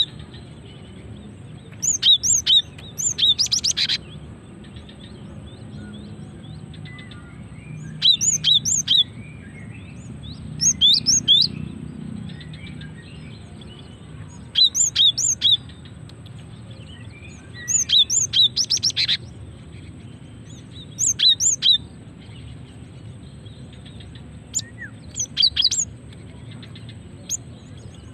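Female cinereous tit (gelatik batu) calling: short bursts of quick, high, sharp notes, about seven phrases a few seconds apart. This is the female's call to a male.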